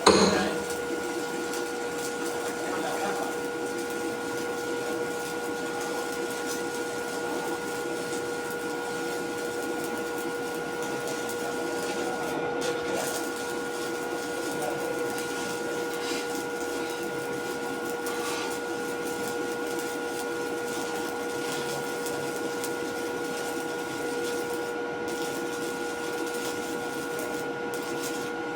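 A steady machine drone holding several constant tones over an even hiss, unchanging throughout.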